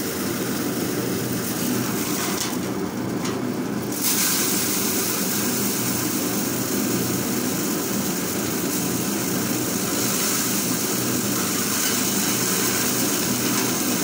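Paddy thresher running with a steady mechanical drone as bundles of rice stalks are fed into its spinning threshing drum; it gets slightly louder about four seconds in.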